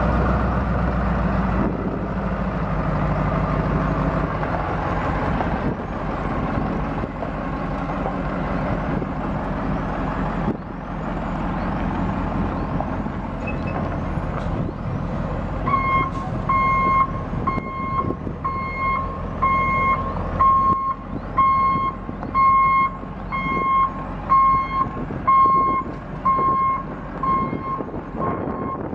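Detroit 8.2L V8 diesel of a GMC Topkick bucket truck running as the truck is driven. About halfway through, its reversing alarm starts beeping steadily, about one and a half beeps a second, as the truck backs up.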